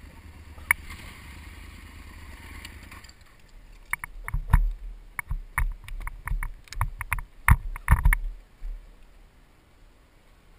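A steady low rumble stops abruptly about three seconds in. About a second later comes a burst of sharp knocks, thuds and clatter lasting about four seconds: a heavy adventure motorcycle going down on a dirt trail and being handled.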